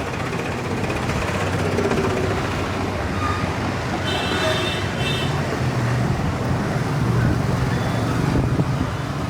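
Busy Indian street ambience: a steady wash of traffic noise with scattered voices. A low engine hum grows louder in the second half, and a short high-pitched tone, like a horn, sounds twice about four to five seconds in.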